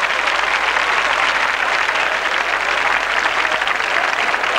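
Audience applauding: a steady, dense clatter of many hands clapping.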